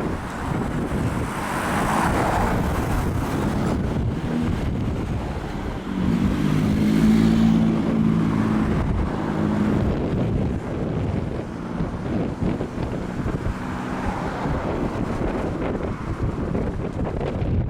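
Wind buffeting the microphone while a vehicle passes, its low engine hum loudest about six to ten seconds in.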